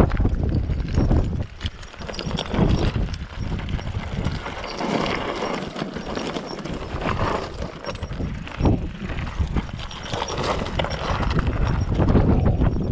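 Mountain bike rolling down a loose, rocky trail: tyres crunching and clattering over loose stones and the bike rattling, with wind rumbling on the microphone.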